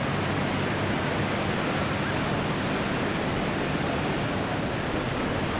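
Distant P-51D Mustang's Packard Merlin V-12 engine heard as a steady rushing roar from high overhead, with a faint low drone that fades about three and a half seconds in.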